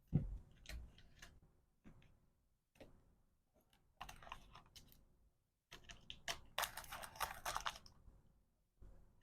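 Small plastic items and packaging being handled: scattered light clicks and taps, then a dense stretch of crinkling rustle for about two seconds near the end.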